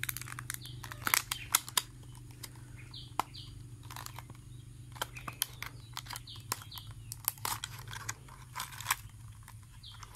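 Clear plastic lure packaging and a cardboard lure box being handled and opened, giving a scatter of crinkling, crackling clicks, loudest about a second in. A bird chirps briefly several times in the background.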